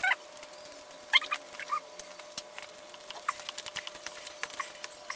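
Scattered light clicks and a few short squeaks of hands working a small plastic super glue tube, piercing its lid and applying the glue, over a faint steady hum.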